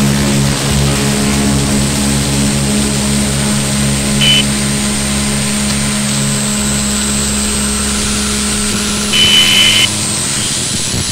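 Droning noise music: several sustained low tones under a thin high whine, with a short high tone about four seconds in and a longer one near nine seconds.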